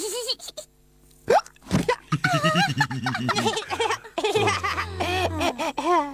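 Cartoon character voices laughing, broken by hiccups, with a short sharp hiccup-like yelp about a second in.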